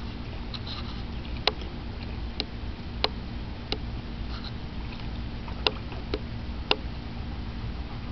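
Husky lapping and splashing the water in a shallow plastic kiddie pool: a string of sharp, irregularly spaced wet clicks over a steady low rumble.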